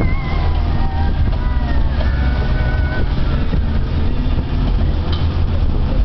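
Motorboat engine running steadily under way while towing a parasail, mixed with rushing wind and water noise.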